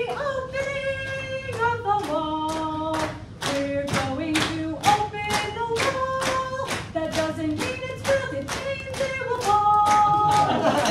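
A woman singing a ballad unaccompanied in long held notes over steady clapping about three beats a second. Applause starts near the end.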